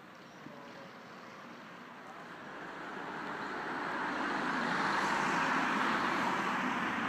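A road vehicle passing close by: a hiss of running noise that builds over a few seconds, is loudest about five seconds in, then starts to fade.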